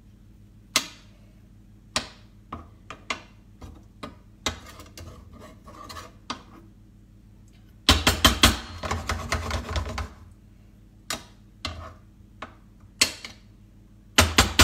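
A utensil stirring cooked apple pieces in a frying pan, clicking and scraping against the pan about once a second, with a burst of rapid clattering over two seconds a little past halfway.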